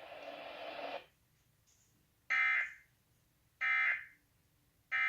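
Emergency Alert System end-of-message data tones: three short, identical harsh buzzing bursts about 1.3 seconds apart, signalling the end of the tornado warning broadcast. They follow about a second of hissing noise that cuts off.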